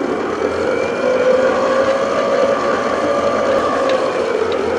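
Electric stand mixer motor running steadily at low speed, its beater working flour and cocoa into the cake batter.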